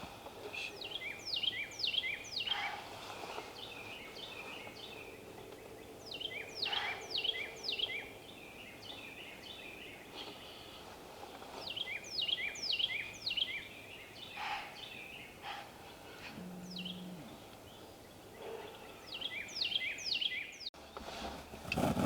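A songbird singing the same phrase over and over, about every six seconds: a quick run of high notes, each sliding downward. Near the end the sound cuts off abruptly and a louder, lower rumbling noise begins.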